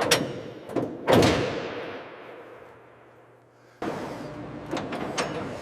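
Heavy metallic clanks and thuds, three in the first second or so, each ringing out and fading slowly; a steady mechanical hum starts suddenly about four seconds in, with a couple of lighter clicks.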